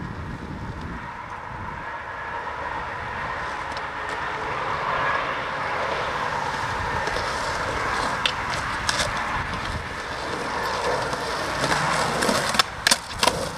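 Skateboard wheels rolling on a concrete channel floor, a steady rumble that slowly grows louder as the board approaches, with a few sharp clacks near the end.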